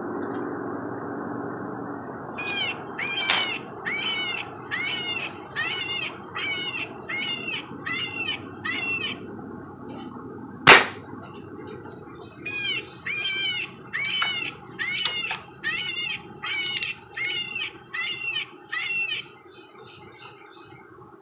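A .22 Benjamin Prowler break-barrel air rifle fires once, a single sharp report about ten seconds in. Around it, an animal gives a long run of short repeated calls, about two a second, which stop shortly before the shot and start again about two seconds after it.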